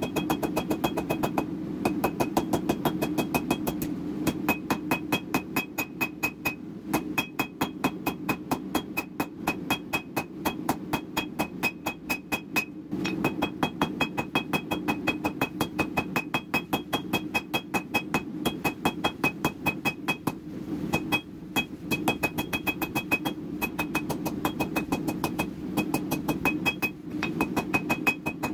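Hand hammer striking a red-hot half-inch round steel bar on an anvil, about three blows a second in runs with short pauses. Each blow rings with a high metallic anvil ring, over a steady low drone.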